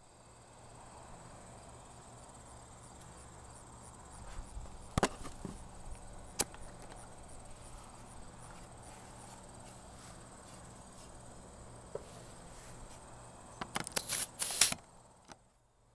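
Steady faint hiss and hum from a homemade potato cannon's charging system, as propane is let into the chamber through the solenoid valve and the chamber fan mixes it. A few sharp clicks break in, with a cluster of clicks and knocks near the end, and the hiss and hum cut off suddenly just before the end.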